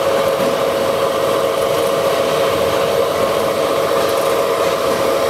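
Steady hum of stator production-line machinery running, with a constant mid-pitched tone over an even mechanical noise.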